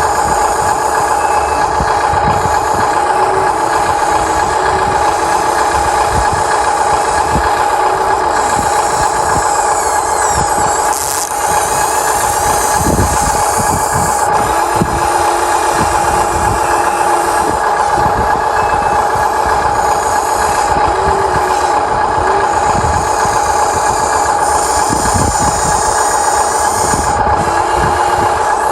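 Huina 1593 RC excavator running with a steady high whine and irregular low knocks underneath.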